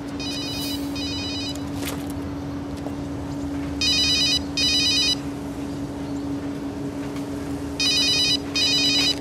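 A mobile phone ringing with a warbling electronic double ring, repeated three times about four seconds apart; the first ring is fainter. A steady low hum runs underneath.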